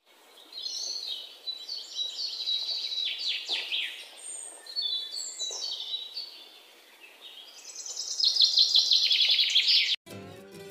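A small songbird singing high, quick, varied phrases with short pauses between them. The song cuts off suddenly near the end, and acoustic guitar music starts.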